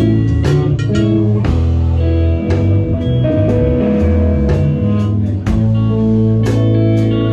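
Live band playing instrumental rock: electric guitars over a drum kit, with a steady beat of drum and cymbal hits.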